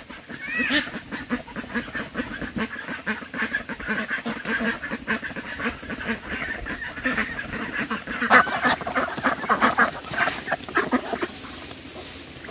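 A flock of ducks quacking together in a dense, continuous chatter, busiest about two-thirds of the way through.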